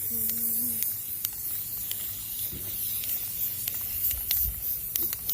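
Aerosol spray can of clear coat spraying with a steady hiss, with small scattered clicks.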